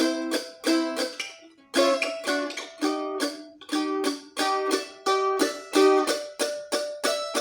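Mandolin strummed and picked with a Primetone sculpted plectrum: a steady run of bright plucked chords, each ringing briefly and fading, with a short break about two seconds in.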